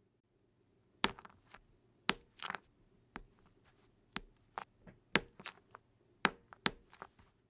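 A knife cutting down through a bar of soap onto a cutting board: a series of sharp, crisp snaps and clicks, irregularly spaced, as the blade breaks through and pieces of soap split away. They begin about a second in.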